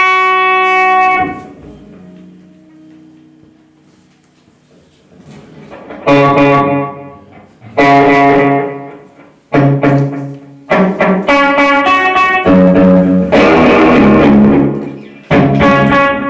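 Guitar notes played through a slapback echo with the echo's output fed back into its input. One note at the start rings and dies away, then after a pause of a few seconds a run of notes follows.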